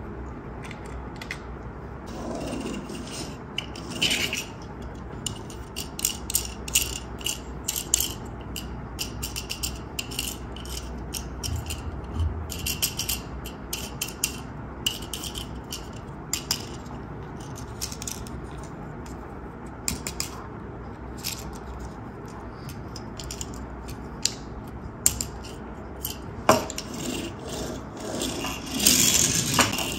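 Hot Wheels toys and their packaging handled by hand: frequent small clicks, clinks and rattles, with rustling scrapes about two to four seconds in and again near the end.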